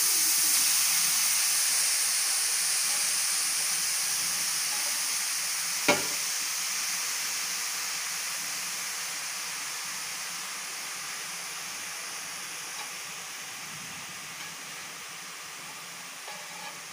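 Grated carrots sizzling in a hot kadhai: a steady high hiss that slowly dies away, with one sharp knock about six seconds in.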